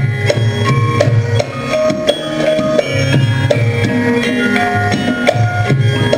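Javanese gamelan music: ringing bronze metallophone and gong-chime notes struck in a running melody over steady hand-drum beats.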